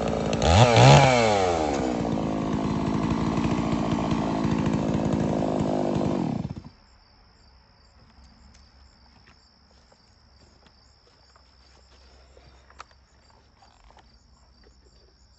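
A Holzfforma G660, a 92 cc two-stroke chainsaw, running at high revs. It swings up and back down in pitch about half a second in, holds steady, and cuts off abruptly about six and a half seconds in. Then only a faint, steady high cricket trill is left.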